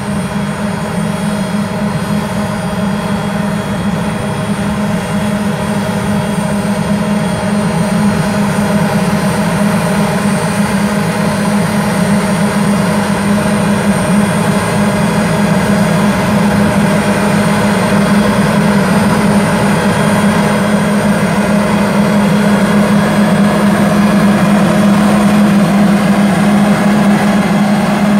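New Holland tractor running a Coastal Tractor bug vacuum through a crop field: a loud, steady drone of the engine and the vacuum's blowers, with a strong low hum and several steady tones above it. It grows slowly louder as the machine comes closer.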